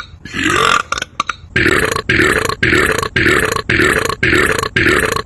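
A man belching over and over: one longer belch, then from about a second and a half in a rapid run of short belches, about two a second.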